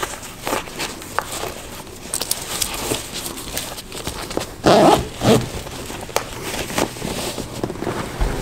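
Bootlaces being pulled through the hooks and tied on a pair of boots: light rustling and small clicks, with two louder pulls about five seconds in.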